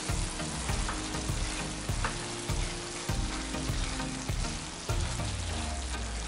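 Spiced moth beans sizzling in a nonstick pan as a spatula stirs them, with a soft knock or scrape at each stroke.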